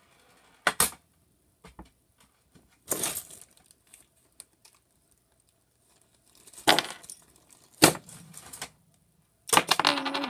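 A zip-lock plastic bag of small metal items being handled: the plastic crinkles and the metal pieces clink in several short bursts, with the longest and loudest near the end.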